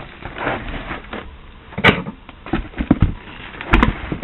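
A cardboard shipping box being opened and rummaged through, packing peanuts rustling, with a few sharp knocks, the loudest about two seconds in and another near the end.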